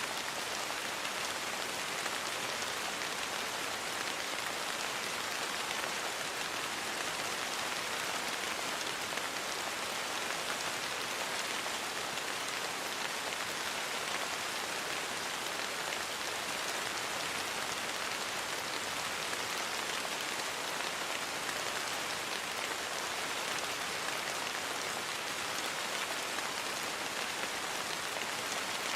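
Steady rain falling on a surface, an even hiss of many drops without change or thunder.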